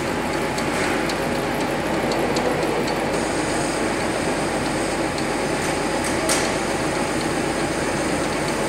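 Conventional metal lathe running steadily, its chuck spinning while a boring bar works inside the part. A thin high whine joins about three seconds in, and there is one sharp click a little after six seconds.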